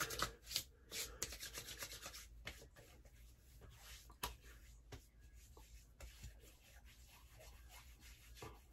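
Hands rubbing aftershave into freshly shaved cheeks and neck: a faint skin-on-skin rubbing, with a few short sharp pats in the first second and a half.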